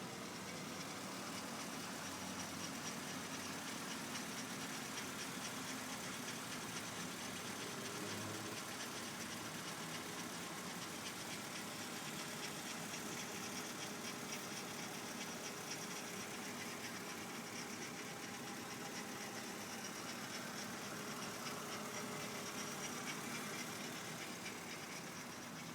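BMW E46 325i's 2.5-litre inline-six idling steadily, with the intermittent rotational grinding noise that comes from the right front of the engine. A dealer takes it for the oil pump, though oil pressure reads normal.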